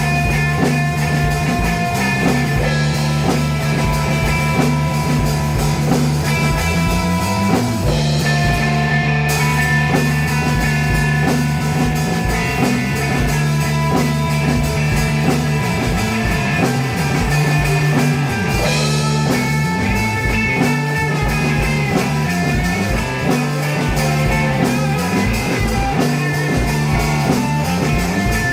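Psychedelic rock jam with electric guitar over a drum kit, built on a long held low note that changes pitch every few seconds, with a steady kick-drum pulse.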